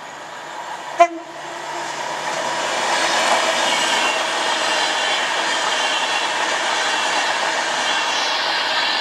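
A train horn gives one very short toot about a second in, then a train comes through the station and keeps running past, a loud steady noise of wheels and traction.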